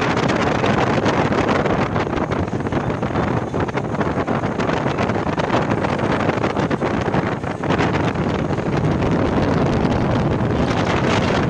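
Speedboat under way at speed: its engine running steadily under heavy wind buffeting on the microphone and the rush of water along the hull.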